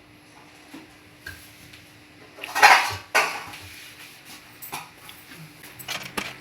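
Cooking utensil knocking and scraping against a pan while pancit is stir-fried, with scattered clicks and a louder scrape about two and a half seconds in.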